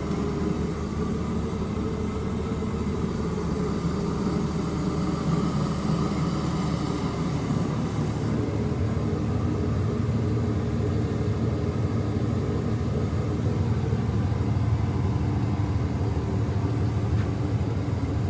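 Ford 6.4 L Power Stroke V8 diesel idling steadily with its newly installed turbo, a faint high whine sitting above the engine's rumble.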